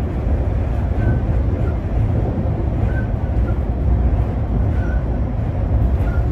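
Steady low rumble of a running train heard from inside the passenger carriage, with a few faint short high squeaks every second or two.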